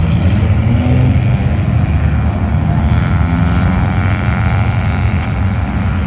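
Many race car engines idling together in a queue, a steady low rumble with a few brief rises in engine note as cars creep forward.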